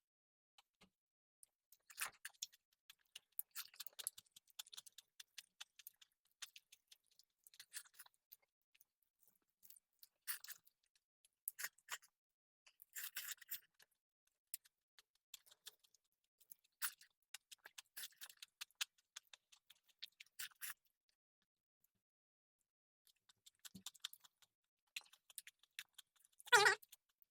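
Close-miked eating: chewing and crunching of rice, salad and green bean and potato curry, in irregular clusters of wet mouth clicks and crunches. The eating pauses for about two seconds past the middle, and a brief louder sound comes near the end.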